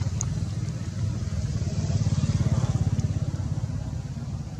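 A motor engine running steadily with a low, fast, even pulse.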